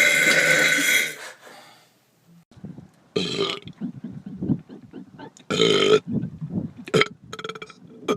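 A person belching loudly: one long belch of about a second to start, then a run of shorter belches.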